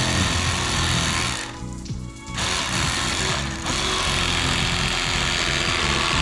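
Electric fillet knife buzzing as it cuts through fish, in two runs with a short stop about a second and a half in. Background music plays underneath.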